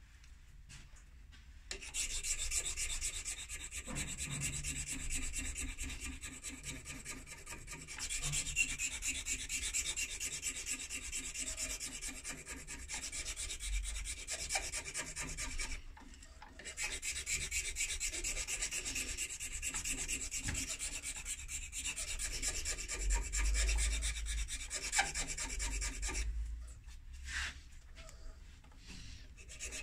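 Hand file worked back and forth over a stem clamped in a lathe chuck that is not running: a steady rasping scrape, breaking off briefly about halfway through and going quieter near the end.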